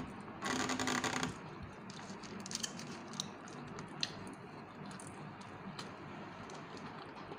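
Eating sounds: hands pulling apart grilled fish over a foil-lined tray and chewing, with a brief rustle about half a second in and a few small clicks after.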